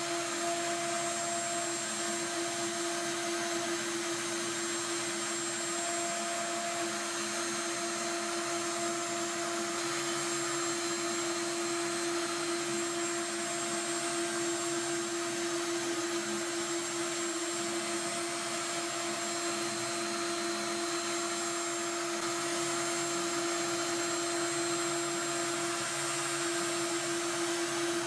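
CNC router spindle running at a steady whine as a fine tapered cutter mills a relief into a plastic rain pipe on a rotary fourth axis, with a hiss of cutting throughout.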